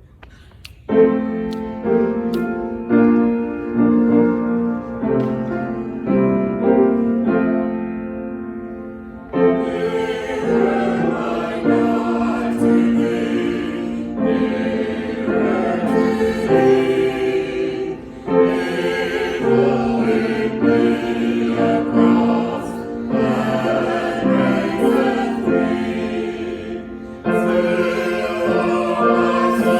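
Choral music: a choir singing, starting about a second in and growing fuller from about nine seconds in.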